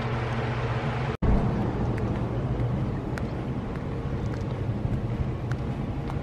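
A steady fan or air-conditioner hum, cut off suddenly about a second in by outdoor street noise: a low rumble of passing traffic with faint flip-flop steps at walking pace.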